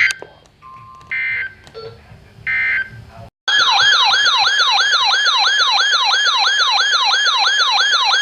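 Emergency Alert System signal: three short, harsh digital SAME data bursts, then a loud, siren-like alert tone of repeated falling sweeps, about three a second, lasting about five seconds.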